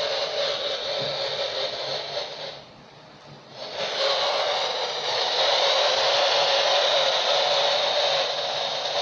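Static hiss from a handheld Uniden CB transceiver's speaker as it scans the channels, with no voice coming through. The hiss drops away for about a second near three seconds in, then comes back.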